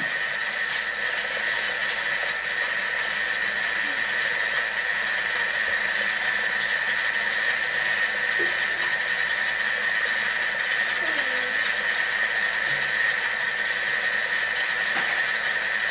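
Thermomix food processor motor running steadily at speed with a high whine, blending the tapenade ingredients.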